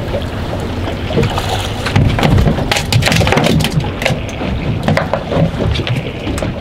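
Wind buffeting the microphone over waves slapping against a boat's hull, with many short, sharp slaps and knocks scattered through it.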